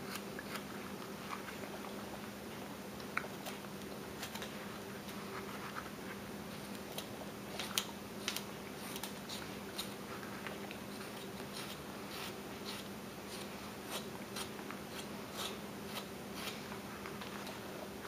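Carving knife paring thin chips off a small wooden block by hand, rounding off its edges: a run of short, irregular crisp cuts and scrapes over a steady low hum.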